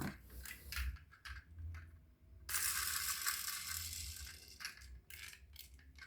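Toys and their packaging being handled: scattered light clicks and knocks, then about two seconds of rustling starting roughly two and a half seconds in.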